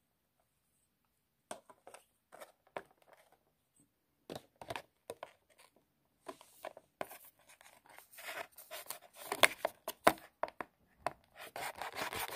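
Small knife blade cutting and scraping at a cardboard toy-car box with a plastic window, making irregular clicks, scratches and crinkles. They grow denser and louder from about halfway through.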